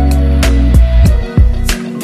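Background music: bass notes under a steady drum beat.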